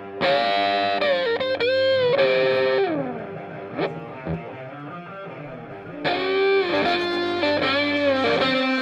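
Music led by a distorted electric guitar playing two phrases of bent and sliding notes, the first near the start and the second about six seconds in, with a quieter stretch between.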